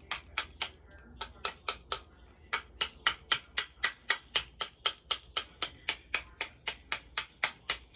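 Repeated hammer blows on the steel mounting bracket of a bicycle engine kit, metal striking metal to free a mount that is stuck fast. A few scattered blows at first, then a steady run of about three or four a second from a couple of seconds in.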